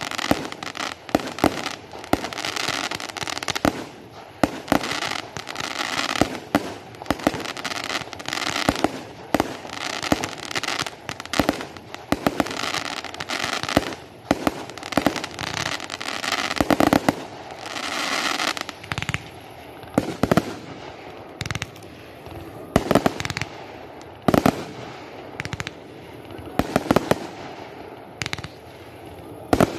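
Fireworks display: shells and pyrotechnics going off in a rapid run of bangs over a steady hiss for about the first twenty seconds, then fewer, more widely spaced bangs.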